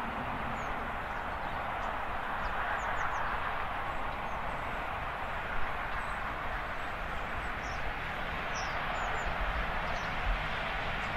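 Steam-hauled train, headed by an LNER Gresley A4 Pacific, running at a distance as a steady rushing noise with no clear exhaust beat. Small birds chirp briefly over it several times.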